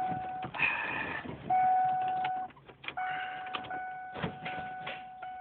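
A 1998 Ford Mustang's dashboard warning tone sounds steadily, breaking off and resuming, as the key is turned in the ignition. There is a short mechanical whirr and a few clicks, but the engine neither cranks nor starts. This is the no-start fault the owner has not cured with a new starter, solenoid, battery and cables.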